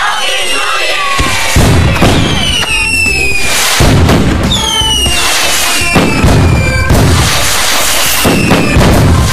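Fireworks going off: repeated heavy booms over a crackling haze, with several whistling shells sliding down in pitch.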